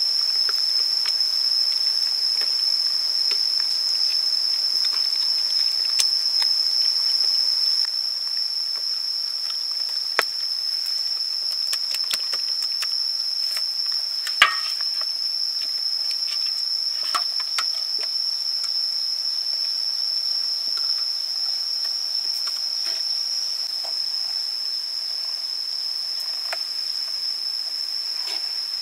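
Steady high-pitched insect buzz, with faint wet clicks and squelches of hands rubbing chili marinade into a raw duck, and one sharper click about halfway through.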